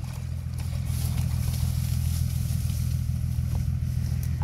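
Vehicle engine idling steadily, a low even drone.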